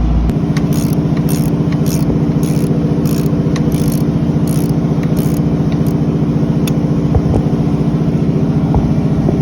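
Engine machinery running with a steady, pulsing drone, with a run of short scraping strokes about twice a second in the first half as a new packing ring is pressed into the pump's stuffing box with a tool.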